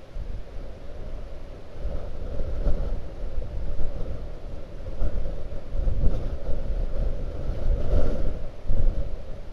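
Blizzard wind buffeting the microphone in gusts, a low unpitched rush that swells and falls, with the strongest gusts about six and eight seconds in.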